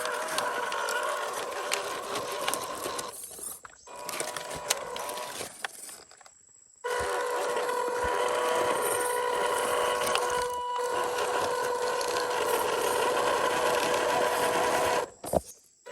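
Small electric motor and gearbox of an MN128 1/12-scale RC Jeep crawler whining steadily at one pitch as it drives. It stops and starts again several times, with the longest pause a little after the middle.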